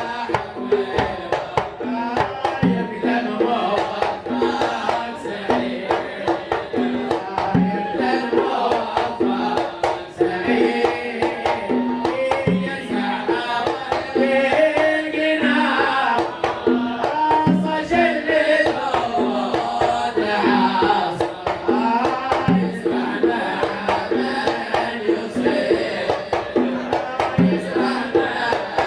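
A sung Sufi poem in the Kuwaiti sawt style, with singing over a steady, even rhythm of hand drums.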